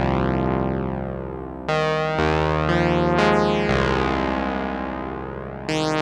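Sequential Prophet 12 synthesizer playing a patch from the Boxed Ear P12 sound bank: sustained chords over a bass note, each with a tone that sweeps up and down through it. A new chord comes in about two seconds in and another near the end, and each fades slowly after it strikes.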